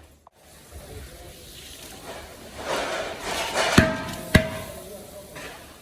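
Two sharp knocks about half a second apart, each with a short ringing tone, after a second or so of rubbing or scraping.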